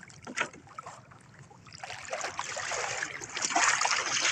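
Shallow seawater splashing and sloshing as someone wades through it, starting about two seconds in and growing louder.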